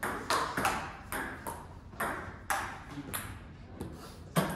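A table tennis ball is hit back and forth. Sharp ping-pong clicks of paddle strikes and bounces on the STIGA table come about twice a second and ring in the large, hard room. A heavier thump comes near the end.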